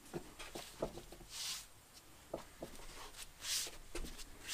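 Faint handling noise: gloved hands rubbing over a rubber mower tire, with a few soft swishes and small light knocks and clicks.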